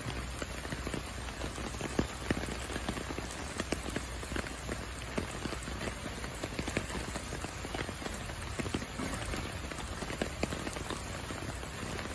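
Heavy rain falling steadily onto a flooded street, with many separate drop hits close by.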